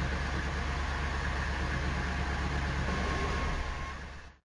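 Cartoon safari jeep engine sound effect: a steady, low motor rumble that fades out near the end.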